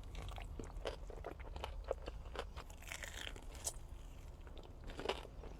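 Close-up chewing of crunchy breaded fried food, with many quick, irregular crunches.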